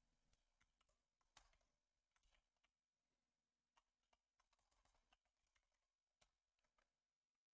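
Near silence with a few faint, scattered computer keyboard key clicks as a command is typed, the plainest about a second and a half in.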